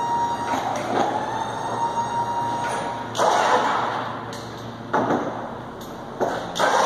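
Overhead hoist lifting a tractor operator station on chains. Its motor whines steadily, stops, and starts again at a higher pitch near the end. In between come a few sharp clunks and rattles.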